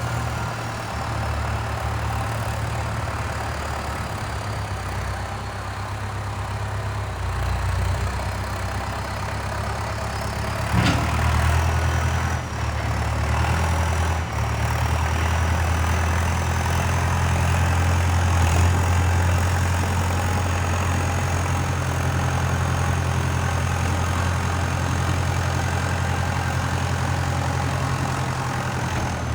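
Valtra 815 backhoe loader's diesel engine running steadily, with a faint high whine that slowly shifts in pitch, as the machine moves snow. A single sharp knock comes about eleven seconds in.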